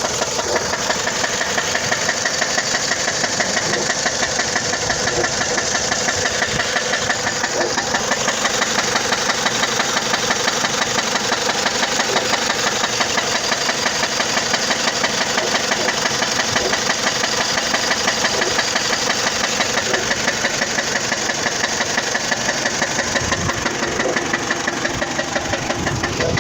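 A 2004 Dodge Stratus engine idling with a loud, rapid, steady knock.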